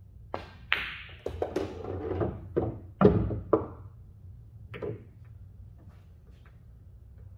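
A pool shot: a light click of the cue tip on the cue ball, a sharper ringing click of cue ball on object ball, then a run of knocks and clunks as the object ball is pocketed and the balls roll to rest. The loudest clunk comes about three seconds in, and one more knock follows near five seconds.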